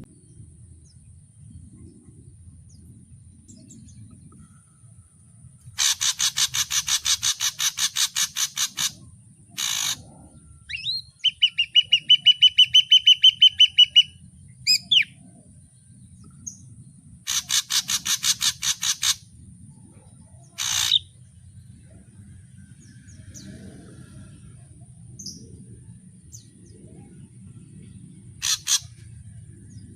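Ashy drongo singing its varied song in separate bursts. Fast rattling runs of harsh notes alternate with a quick trill of clear repeated notes, the loudest phrase, and single calls, with pauses of a few seconds between phrases.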